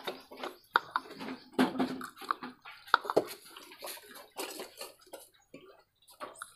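Water splashing and trickling in short, irregular spurts with small knocks, as a betta fish is scooped out of a bowl with a little water and poured through a funnel cut from a plastic bottle into a glass bottle.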